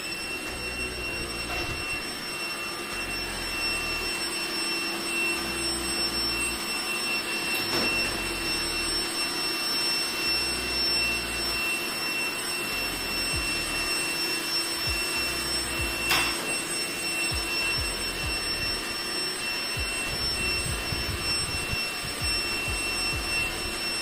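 Robot vacuum cleaner running, a steady high whine over a whoosh of suction. Two sharp knocks cut through it, the louder one about sixteen seconds in.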